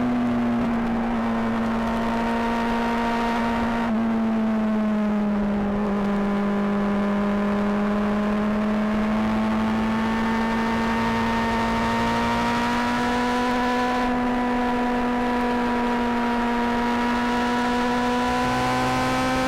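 Honda CBR600RR's inline-four engine running under way at fairly steady revs, picked up by a microphone right beside the exhaust. The pitch drops about four seconds in, sinks a little further, then climbs slowly and holds steady.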